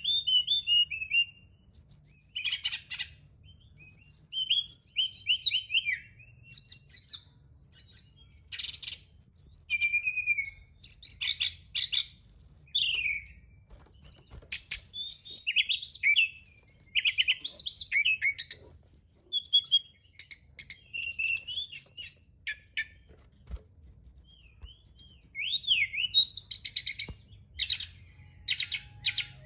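Brown-chested jungle flycatcher (SRDC, sikatan rimba dada coklat) singing: quick, varied whistled and trilled phrases of a second or two, with short pauses between them, over a faint low hum.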